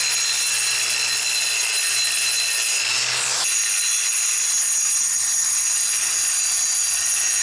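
Angle grinder with an abrasive disc grinding down concrete on top of a foundation wall: a loud, steady high whine over a grinding hiss, taking off the high spots and little lips left from floating the concrete. About three seconds in, the sound shifts briefly as the disc moves along the wall.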